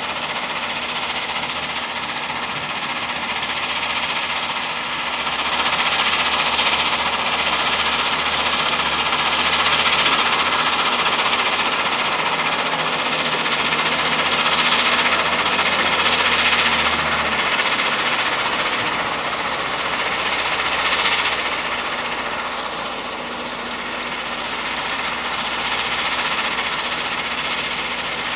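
Scania truck's diesel engine running as the truck drives and manoeuvres, with a steady wash of machinery noise and a thin constant whine over it. The engine's low note drops away about two-thirds of the way in.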